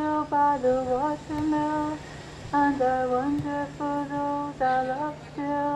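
A woman's unaccompanied singing voice played back from an outdoor sound installation: a slow melody in short held notes with brief breaks between them and small slides in pitch.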